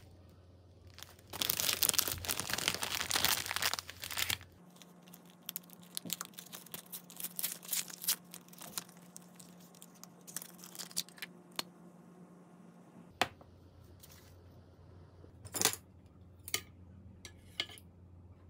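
Plastic cookie wrapper crinkling for about three seconds. Then scattered light clicks and taps follow as small packages are handled on a countertop.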